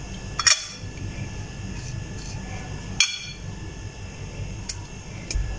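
Steel spoon clinking against a glass bowl: two sharp clinks about two and a half seconds apart, with a fainter tap near the end.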